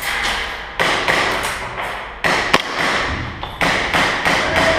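Airsoft guns firing irregular single shots, about a dozen in under five seconds, each cracking and trailing off in the echo of a large indoor arena.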